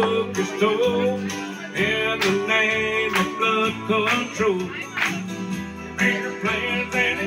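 Country band playing live: a dance tune with guitar and a steady beat.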